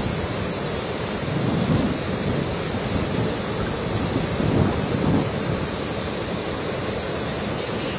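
Steady rushing of a swollen river in flood, with a few low swells in the noise.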